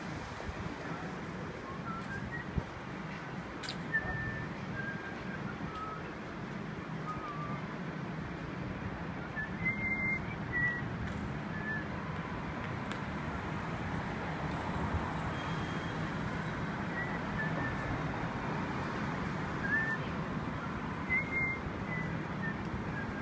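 Downtown street ambience: a steady low hum of traffic and city machinery, with someone whistling a tune in short, thin notes that step up and down in pitch on and off throughout. There are a couple of sharp clicks early on.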